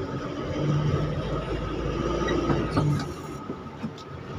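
Vehicle running along a street: steady low engine and road rumble with a faint whine, easing a little about three seconds in.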